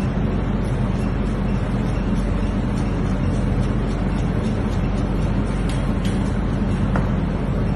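A steady, loud low rumble with a continuous hum, like running machinery or a ventilation fan, with faint, irregular taps of a knife chopping on a plastic cutting board.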